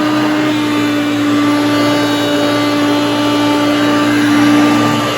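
Hoover Concept One upright vacuum cleaner running steadily: a loud motor hum with one strong unchanging tone over a rush of airflow noise.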